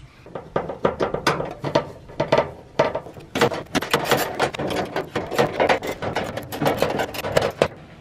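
Rapid, irregular clicking and clattering of sheet-metal furnace parts being handled in the blower compartment, growing denser about halfway through.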